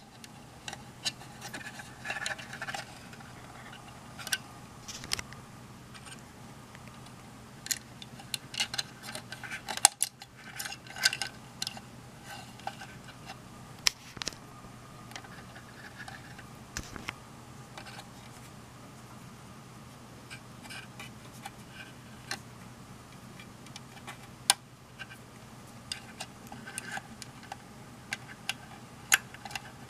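Scattered small clicks, taps and light scrapes of springy wires and parts being worked into a plastic multimeter case by hand, irregular and brief. A faint steady low hum runs underneath.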